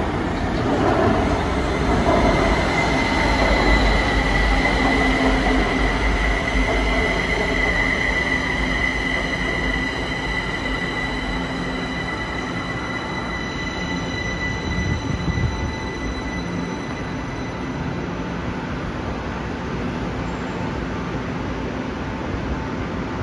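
Kaohsiung MRT train pulling into an elevated station and slowing to a stop: the rumble of the wheels on the rails is loudest at first and eases as it slows. Over it runs a steady high whine that fades away near the end.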